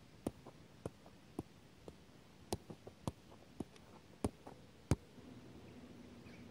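Football being juggled: a string of sharp touches of the ball off the foot, about two a second, with one much louder strike near the end. A faint steady hum follows in the last second or so.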